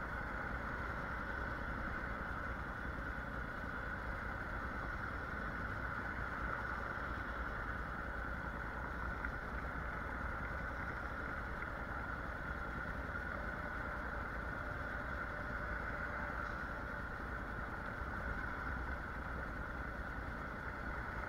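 Honda NC750X motorcycle under way: its parallel-twin engine runs steadily with tyre rumble over cobblestones.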